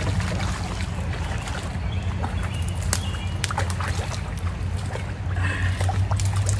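Water splashing and sloshing in a shallow river as a hooked fish thrashes at the surface and a person wades through the shallows, with scattered sharp splashes over a steady low rumble.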